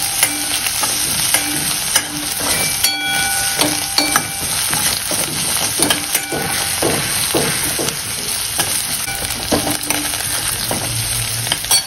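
Chopped onion, green chillies, garlic and ginger sizzling in hot oil in a stainless steel kadhai while being sautéed. A steel spoon repeatedly scrapes and knocks against the pan, with a brief metallic ring about three seconds in.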